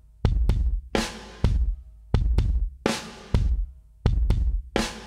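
Background music: a steady drum beat of kick and snare hits, with held tones coming in near the end.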